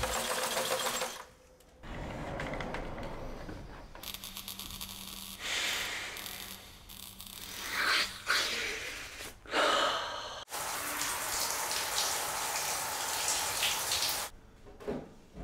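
Shower running, a steady hiss of water lasting about four seconds in the second half. Earlier there are shorter noisy sounds and a low steady hum that lasts a few seconds.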